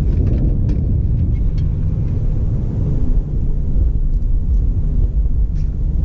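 A steady low rumble, with a few faint clicks from wires and plastic connectors being handled near the start.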